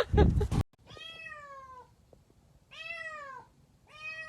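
A cat meowing three times, each meow rising briefly and then falling in pitch, after a loud burst of a person's voice that cuts off half a second in.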